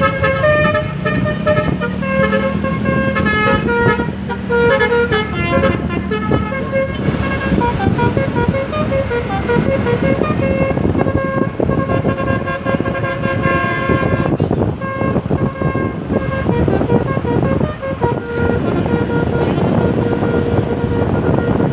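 Bus telolet horn, a Basuri V3 set with roof-mounted trumpets, playing a fast tune of short stepped notes with several tones sounding together, loud over a noisy background.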